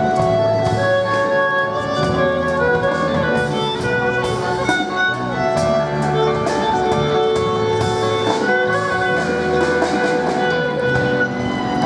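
Live band playing amplified music: electric guitar with held notes over drums, with a steady run of cymbal strikes.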